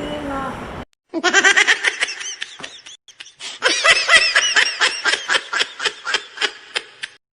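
High-pitched laughter in quick bursts, in two runs: one starting about a second in, a second after a short pause. The second run thins out into separate short laughs near the end.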